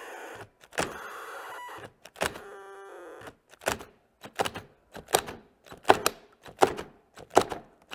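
Two cordless drill/drivers, a DeWalt and a Milwaukee, with their chucks locked together, run in short bursts of about a second each as they fight each other, cutting out on their overload cutoff. This is followed by a string of sharp clicks and knocks, about two a second.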